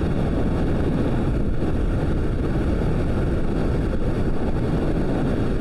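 Steady wind rush over the microphone and road noise from a motorcycle cruising at speed, with the engine running underneath.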